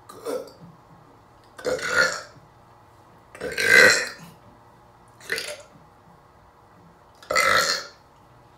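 A man burping five times, a second or two apart, the middle burp the loudest, from gulping down eggnog.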